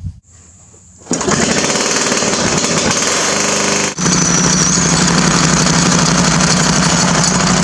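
Small gasoline engine running loud and steady at high speed, starting about a second in, with a brief break near four seconds before it carries on with a steady low drone.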